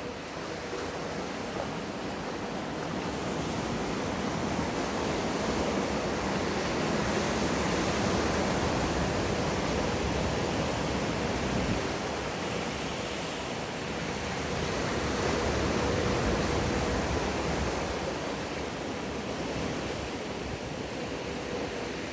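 Rushing, breaking water of a wave-pool wave, a steady roar of whitewater that swells twice and eases off. A faint steady hum runs underneath.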